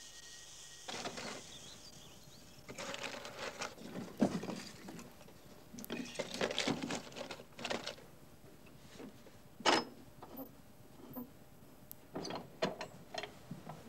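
Irregular clusters of clicks, knocks and rattles, with the loudest single knocks about four and ten seconds in.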